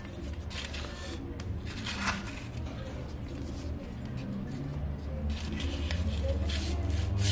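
Sandpaper strip and cord being handled and wrapped around a crankshaft journal: soft rustling, scraping and small ticks of paper and cord against the steel.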